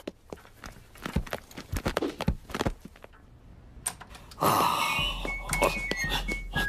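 Cartoon knocks and thuds of someone rummaging and changing clothes behind a wooden wardrobe door, a quick run of separate hits. About four and a half seconds in, a whoosh and a short tune of high stepping notes begin.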